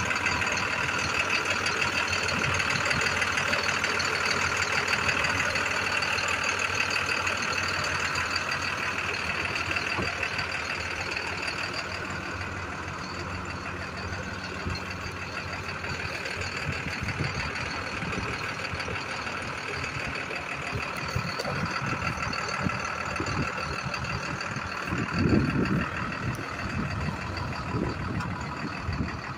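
Medium-duty diesel truck engine idling steadily, with a steady whine above it. Wind rumbles on the microphone in gusts, strongest about 25 seconds in.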